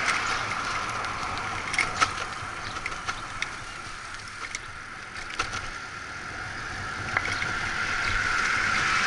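Bicycle rolling along a concrete sidewalk: a steady rolling whir with scattered clicks and knocks from bumps and rattling parts, quieter in the middle and growing louder toward the end.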